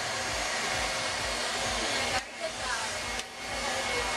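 Hand-held hair dryer blowing steadily during a round-brush blow dry, a continuous rush of air. The rush drops briefly twice, a little after two seconds in and again about a second later.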